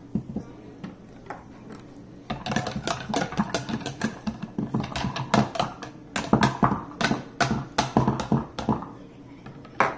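A whisk and a plastic measuring scoop clattering and scraping against a plastic mixing bowl as a child stirs, a quick irregular run of clicks and knocks, several a second, starting about two seconds in and stopping near the end, with one last sharp knock just before the end.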